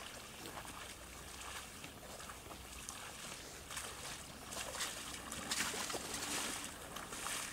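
Waders sloshing through shallow water, step after step, the splashes getting louder toward the end.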